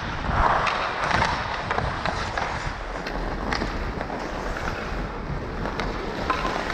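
Ice hockey skate blades striding and scraping on rink ice, with a few scattered sharp clicks.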